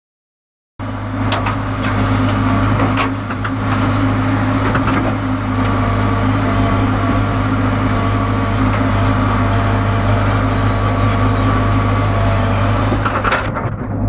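ACE backhoe loader's diesel engine running steadily under load, heard from the operator's cab, with a few sharp clanks from the digging arm and bucket. The sound starts suddenly just under a second in.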